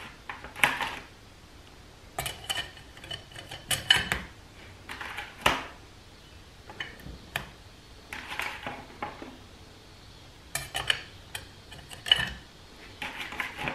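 Transmission clutch plates clinking against each other and the clutch drum as steel and friction plates are stacked one at a time into a 47RE forward clutch pack. Irregular light metallic clinks, some with a short ring.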